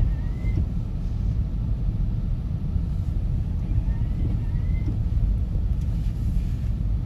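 Steady low rumble of a car heard from inside the cabin, with two faint short rising squeaks, one at the start and one about four seconds in.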